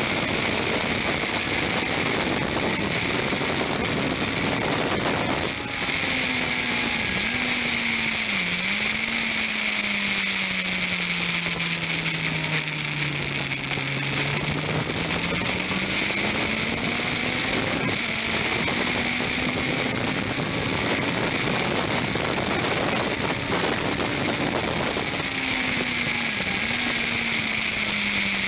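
Onboard sound of a Yamaha R1's inline-four engine at part throttle on track, its note rising and falling through gear changes. It drops to its lowest about halfway through, then climbs again, with a few brief dips as gears are changed. A steady rush of wind and spray on the camera runs underneath.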